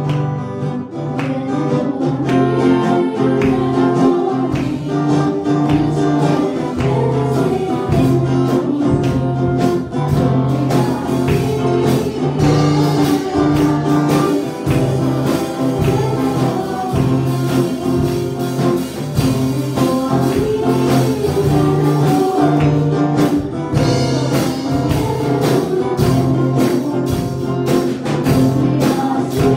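A girl singing a Spanish Christian hymn into a microphone over instrumental accompaniment with a steady beat.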